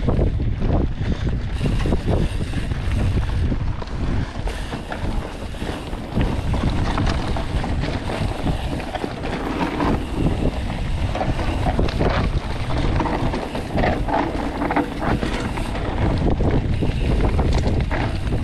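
Wind buffeting the microphone during a mountain bike descent on a dirt forest trail, with a constant rumble and frequent knocks and rattles from the tyres and bike over the rough ground.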